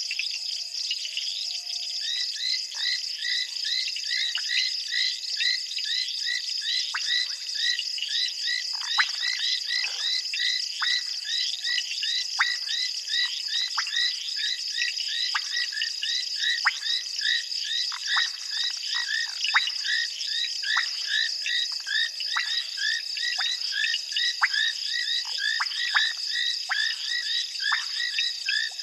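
Frogs calling in a dense chorus of short, rapidly repeated chirps, starting about two seconds in, over the steady high trill of insects.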